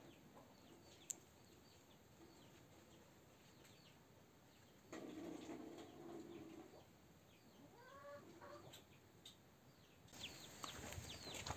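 Quiet room tone with chickens clucking faintly and small birds chirping now and then, plus a single sharp click about a second in.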